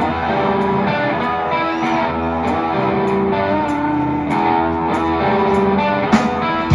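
Live rock band playing an instrumental passage, electric guitar chords held over a steady beat with a regular high tick about twice a second.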